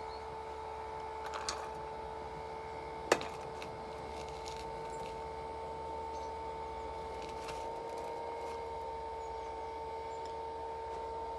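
Battery-powered blower fan of a Vulkan 2.0 bee smoker running with a steady electric hum, keeping the fuel burning. A single sharp click about three seconds in.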